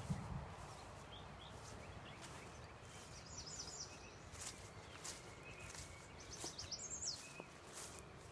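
Footsteps swishing through grass and brush, with birds chirping in two short runs of high notes, about halfway through and near the end. A low thump comes right at the start.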